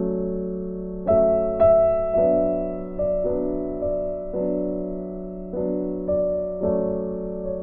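Slow background piano music, a new note or chord struck about once a second and left to ring.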